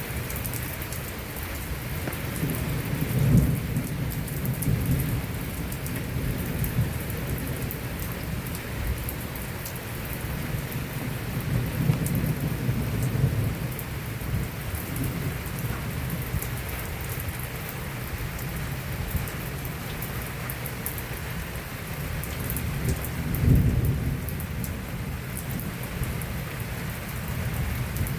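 Heavy rain pouring steadily, with deep rumbles swelling about three seconds in, around twelve seconds and near twenty-three seconds.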